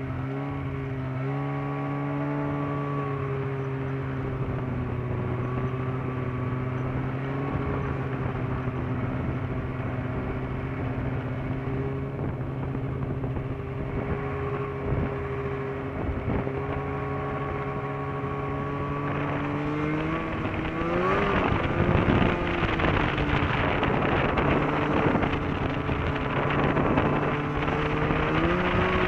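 Snowmobile engine running at a steady, moderate speed, then speeding up about two-thirds of the way in, its pitch rising and the sound growing louder and noisier, with another rise in pitch near the end.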